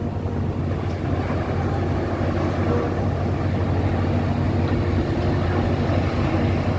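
Steady low drone of heavy ship machinery running during the coal unloading, with no sudden events.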